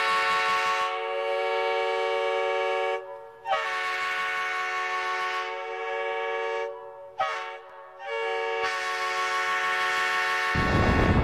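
Locomotive air horn blowing the grade-crossing signal: two long blasts, one short, then one long. Near the end it gives way to the rumble of a moving train.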